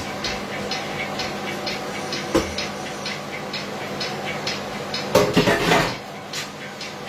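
Kitchen pots and utensils clattering during cooking: one sharp clank about two seconds in, then a longer, louder burst of clattering around five seconds in. Under it runs a light ticking about three times a second and a steady hum.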